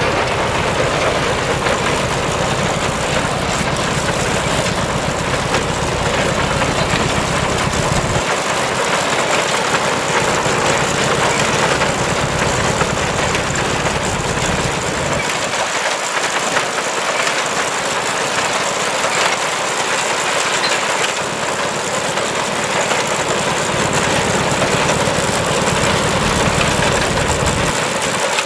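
Vintage Steyr tractor's diesel engine running steadily as it tows a reaper-binder, mixed with the binder's mechanical clatter from its cutter bar, reel and canvases. The low engine note drops away for several seconds in the middle, leaving mostly the clatter.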